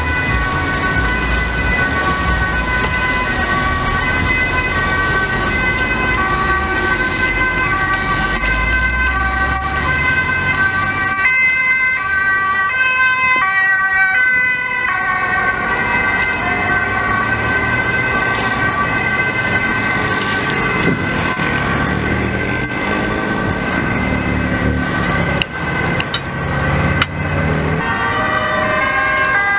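Two-tone sirens of several emergency vehicles overlapping, each switching between a high and a low note. They are loudest about twelve to fifteen seconds in, as an ambulance passes close. Road traffic and engine noise run beneath.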